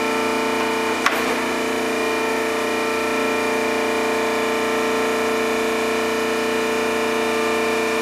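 Mattison 14x48-inch hydraulic surface grinder running: a steady machine hum carrying several steady tones while the table traverses, with one sharp click about a second in.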